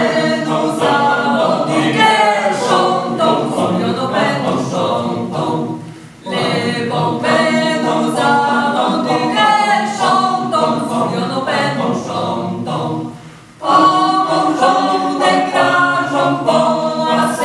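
Mixed choir of men's and women's voices singing a cappella. The phrases break off briefly about six seconds and about thirteen and a half seconds in.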